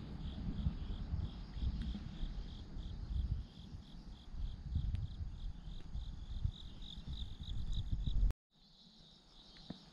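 Crickets chirping in an even rhythm, about three chirps a second, over a low rumble. The sound cuts off sharply near the end and a fainter, steadier insect trill follows.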